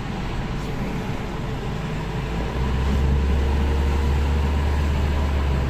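Road noise from a moving car, heard from inside: a steady rumble of tyres and engine with a hiss over it. The rumble grows heavier about two and a half seconds in.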